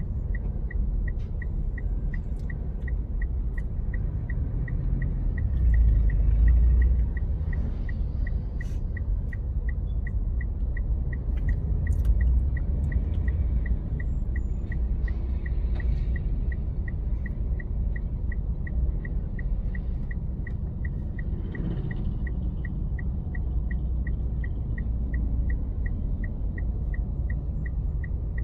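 Low rumble of a car's engine and tyres heard from inside the cabin as it creeps along in slow, stop-and-go highway traffic, swelling briefly about six seconds in. A steady high tick repeats about twice a second throughout.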